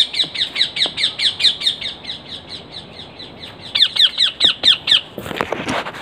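A small pet parrot calling in free flight: a rapid series of sharp chirps, each falling in pitch, about four to five a second. The calls fade in the middle and come back loud for a second before stopping about five seconds in, followed by a short rushing noise.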